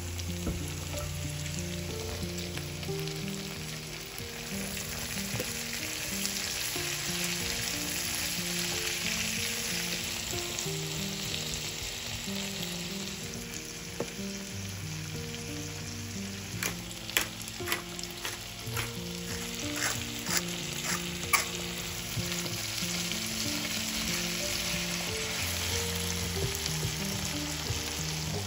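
Onions, potatoes and carrots sizzling steadily as they fry in a pan. A little past halfway a utensil stirs them and clicks sharply against the pan several times. Soft background music plays underneath.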